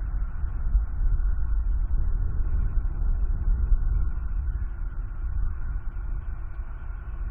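Wind buffeting the outdoor nest-cam microphone: a low, uneven rumble that swells and eases.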